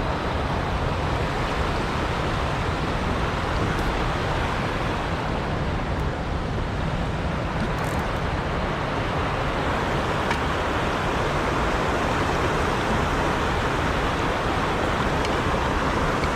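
Steady rushing of flowing creek water, an even hiss and rumble that holds level throughout.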